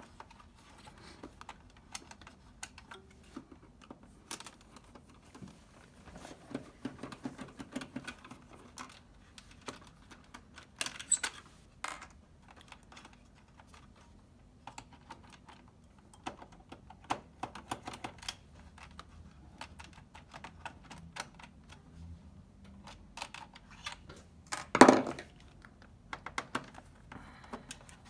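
Small clicks, ticks and scrapes of a hand screwdriver backing screws out of a PS4's power supply, with the loose screws and tools tapped down on the table. One louder knock near the end.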